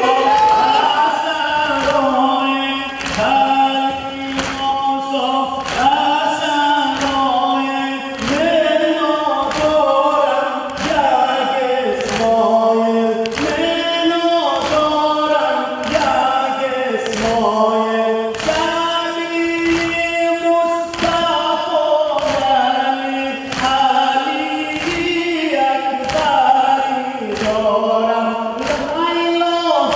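A noha, a Shia mourning lament, chanted by a group of men in unison to a slow, repeating melody. Under the singing, a crowd beats their chests in time (matam), giving sharp, even slaps about once a second.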